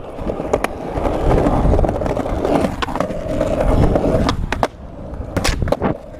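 Skateboard wheels rolling over concrete sidewalk and asphalt: a continuous rough rumble. Sharp clacks break through it, one early and several close together near the end.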